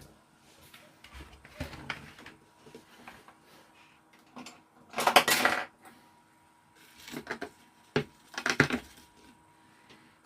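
Small hard objects clinking and rattling as tools and bottles are picked up and set down on a workbench. The loudest clatters come about five seconds in and again near the end.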